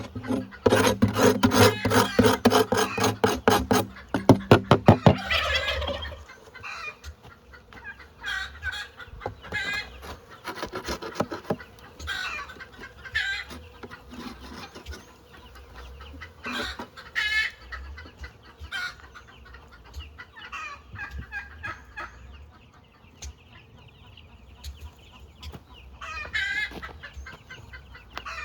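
Farm poultry calling: a loud run of rapid, repeated calls for about the first five seconds, then scattered clucks and calls.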